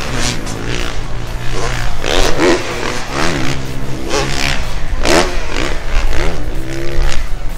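Dirt bike engine revving hard and easing off several times over, in repeated rising and falling sweeps of pitch as it rides the jumps.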